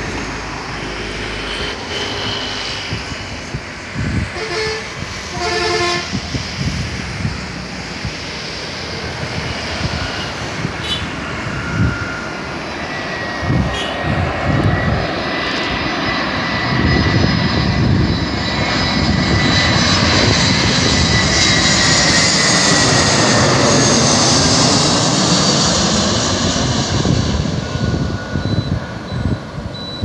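Airbus A321-211's twin CFM56 turbofans on landing approach, growing from a faint high whine into a loud jet rumble as the plane comes in low and passes over, loudest past the middle. The whine slides slightly down in pitch. Gusts of wind buffet the microphone.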